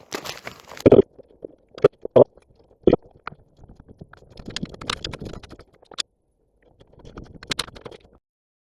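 Footsteps and rustling through forest undergrowth, with several sharp knocks and snaps in the first few seconds.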